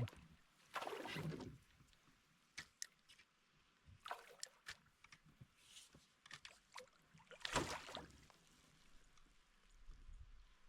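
Scattered water splashes and light knocks at a canoe's side as a small hooked fish is fought in, with the loudest splash about seven and a half seconds in.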